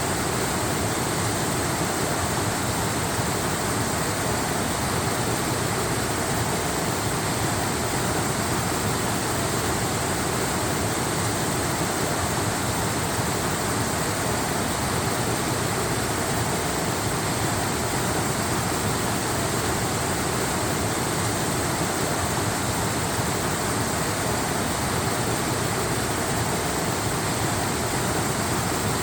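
Waterfall: the steady, unchanging rush of falling water.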